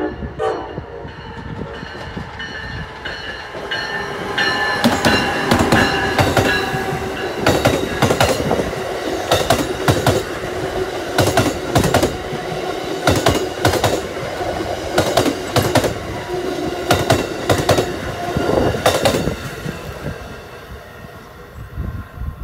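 Amtrak Northeast Regional train hauled by an ACS-64 electric locomotive passing: the wheels clack over the rail joints in regular pairs about every two seconds, over a steady whine. It fades away near the end.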